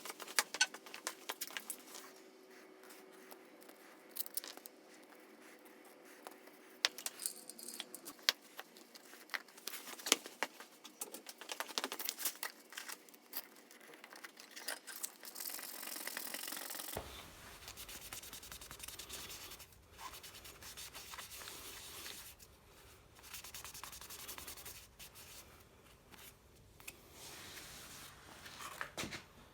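Close handling noises of a bicycle inner-tube puncture repair: rubbing and scraping with frequent small clicks and crinkles. The background changes abruptly a little past halfway, after which the rubbing comes in longer stretches.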